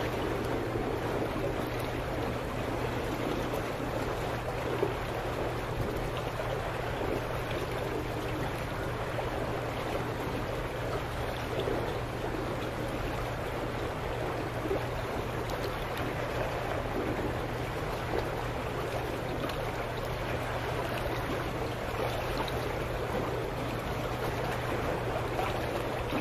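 Steady churning and burbling of water stirred up by a dock's de-icing bubblers, with a steady low hum underneath.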